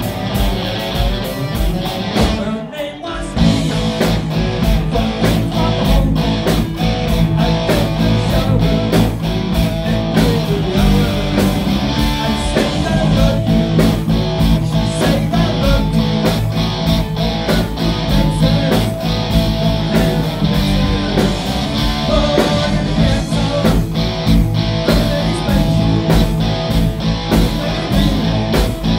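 Live rock band playing: two electric guitars through Marshall amplifiers, bass guitar and drum kit. A brief break comes about three seconds in, then the full band comes back in with a steady drum beat.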